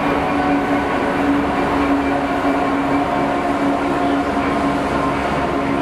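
Freightliner Class 66 diesel-electric locomotive 66545 passing close by, its EMD two-stroke V12 diesel running with a steady engine note over the rumble of its wheels on the rails.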